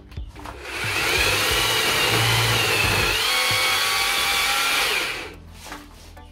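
Battery-powered electric chainsaw running and cutting into tree branches for about four and a half seconds, its high whine shifting in pitch as the chain takes load, then stopping suddenly.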